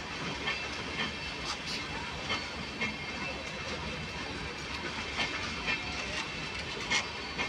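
Indian Railways LHB passenger coaches rolling past, with a steady rumble and hiss and sharp wheel clicks over the rail joints every half second to a second. The loudest click comes near the end.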